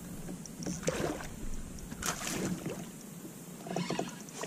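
Water slapping and lapping against a plastic fishing kayak's hull, with a few light knocks and clicks, the clearest about one and two seconds in.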